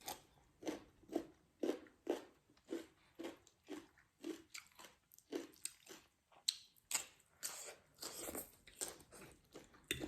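Close-miked mukbang chewing: steady chewing at about two bites a second, turning into louder, crisper crunches about six seconds in.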